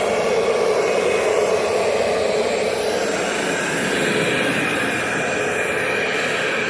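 Bagless vacuum cleaner running steadily, its motor giving a continuous whine.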